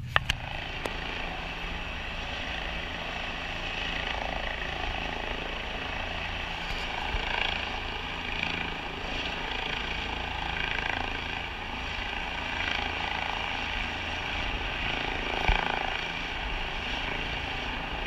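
Helicopter flying low overhead, a steady rotor and engine noise that swells and eases a little as it passes.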